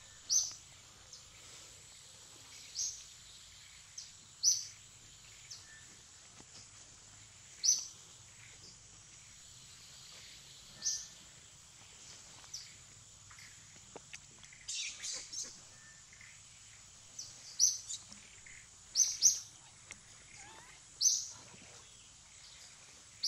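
A bird giving a short, high chirp over and over, roughly every two to three seconds, with a quick run of several calls about halfway through. A faint, steady high-pitched tone runs underneath.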